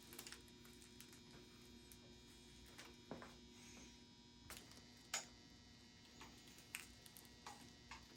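Near silence: a faint steady electrical hum with scattered light clicks and taps, the clearest about three and five seconds in.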